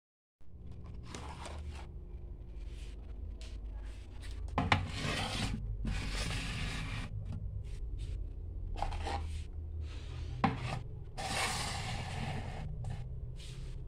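Clear plastic storage tubs being handled and slid over a cabinet shelf, making rubbing and scraping sounds with two sharp knocks, one about five seconds in and one about ten seconds in.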